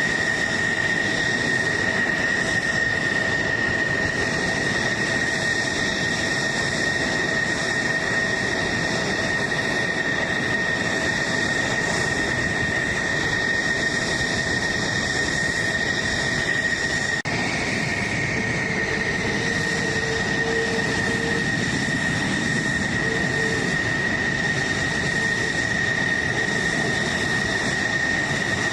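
Jet engine running steadily: a continuous rushing roar carrying a high, constant whine, with an abrupt cut about two-thirds of the way through.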